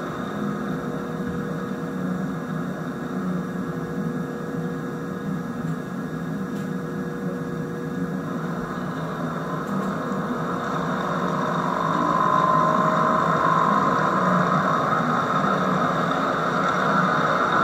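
HO scale model freight train running past, its cars' wheels rolling on the track with a steady noise that grows louder about eleven seconds in.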